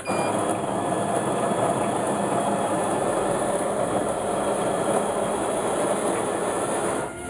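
Getra ME-709 automatic coffee machine running with a steady, dense rushing noise that breaks off near the end.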